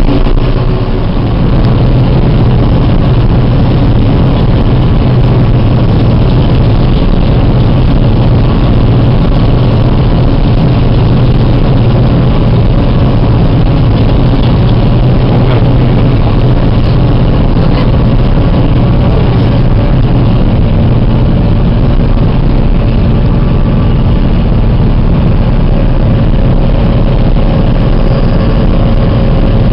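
John Deere self-propelled forage harvester running under load while chopping maize with its 6-row header: a loud, steady engine drone over the constant rush of the cutterhead and crop flow.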